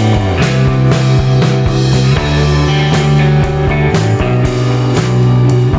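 Background rock music with guitar and drums.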